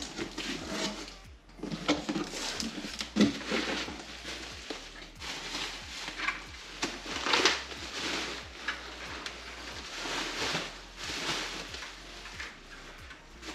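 Plastic bag and bubble wrap crinkling and rustling, with cardboard box handling, as a car grille is unpacked: irregular swells of rustle with scattered light knocks.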